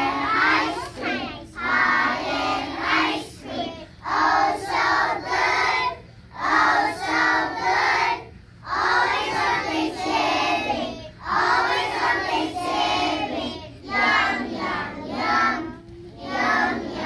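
A group of preschool children singing a song together in short phrases, with brief breaths between lines.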